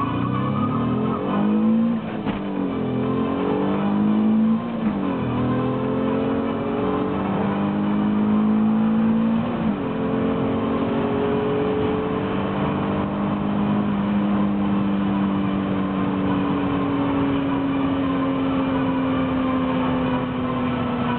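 Alfa Romeo 156's 3.0 V6 engine at full throttle, heard from inside the cabin during a timed acceleration run. The revs climb and drop back at upshifts about two, four and a half and ten seconds in. After the third shift the revs rise more slowly, then ease off and fall gently over the last several seconds.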